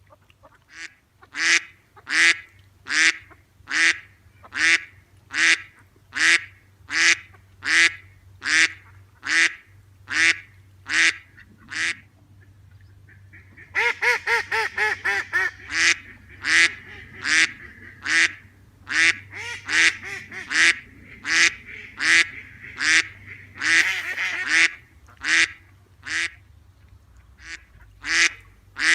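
Duck quacking in a long, even series, about one quack every three-quarters of a second, broken near the middle by a quick run of rapid quacks.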